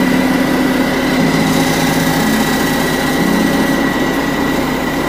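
Truck engine idling steadily, an even hum with a steady high tone over it.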